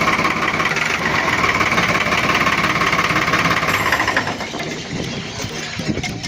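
New Holland 3630 tractor's three-cylinder diesel engine running just after starting, a loud, dense clatter through its stock silencer, with no turbo whistle fitted. It eases off and gets quieter about four seconds in.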